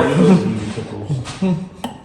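Indistinct voices, with a short click near the end.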